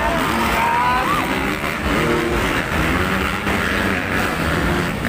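Motocross dirt bike engines revving and running as the riders race over the track, their pitch rising and falling, with a rising rev about a second in.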